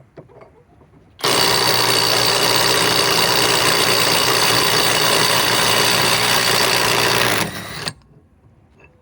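Kobalt subcompact cordless 3/8-inch impact wrench hammering in reverse for about six seconds as it works to break loose a fastener, easing off briefly before it stops.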